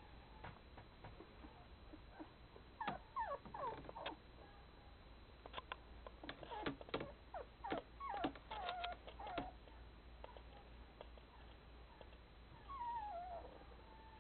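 Newborn Bernese Mountain Dog puppies squeaking and whimpering in short, high, falling cries. There is a cluster about three seconds in and many more from about five and a half to nine and a half seconds, then one longer falling whine near the end.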